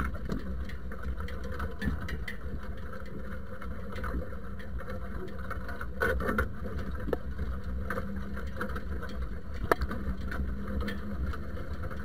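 Zetor tractor engine running steadily as it pulls a spring-tine field cultivator through soil, with a few sharp knocks and rattles from the cultivator's steel frame and tines, the loudest about six seconds in and near the ten-second mark.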